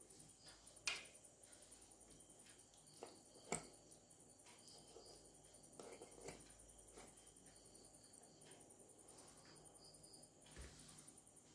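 Near silence: quiet handling of raw chicken with a small knife on a wooden cutting board. Two sharp clicks stand out, about one second and three and a half seconds in, with a couple of fainter taps later.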